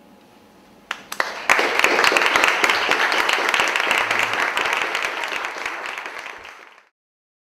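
Audience applauding: a few first claps about a second in, then full applause that slowly fades and stops abruptly near the end.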